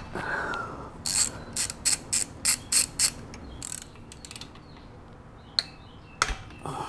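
3/8-inch ratchet with a T40 Torx bit clicking in quick runs as it backs out the Torx bolts holding the high-pressure fuel pump. The clicks come about three a second from about a second in, pause, then start again near the end.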